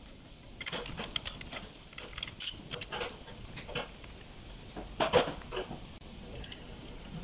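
Motorcycle fork leg stroked up and down by hand, giving irregular metallic clicks and knocks, the loudest about five seconds in.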